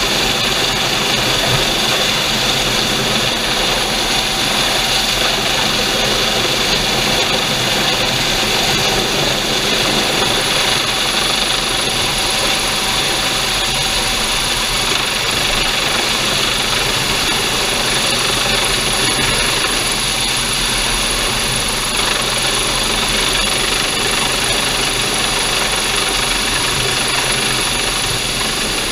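Coast Guard MH-65 Dolphin helicopter hovering low overhead, a steady turbine whine and rotor noise mixed with rotor-wash wind on the microphone.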